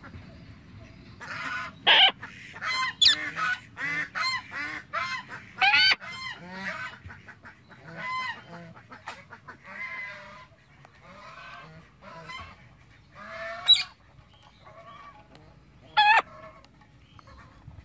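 Parrots calling: a dense run of short, loud squawks for several seconds, then sparser calls, with two sharp loud squawks near the end.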